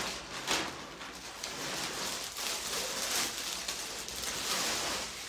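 Continuous rustling of handled shawl fabric as shawls are moved aside and picked up, with a couple of sharper rustles in the first half second.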